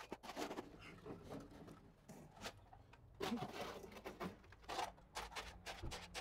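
A spade scraping and wet concrete mix being shovelled into a post hole and worked down around a steel pole: a run of short, irregular scrapes and soft knocks.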